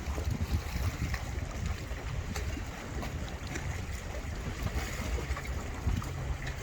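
Passenger ferry under way, its engine a steady low rumble under wind noise on the microphone and the wash of water.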